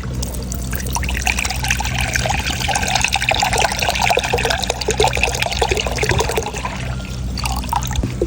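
Coconut water pouring out of an opened coconut, a trickling, splashing stream that starts about a second in and tapers off near the end, over a steady low hum.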